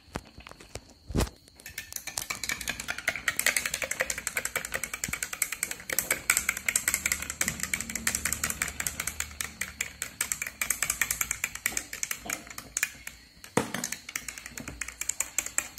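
A metal spoon stirs a glass of squash just topped up with soda, clinking rapidly and steadily against the glass over the crackle of the fizz. A single knock comes about a second in, and another near the end.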